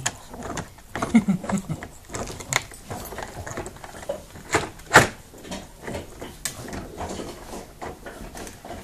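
Dog gnawing on a bone: irregular sharp clicks and knocks of teeth and bone, the loudest about five seconds in. A brief low vocal sound, falling in pitch, comes about a second in.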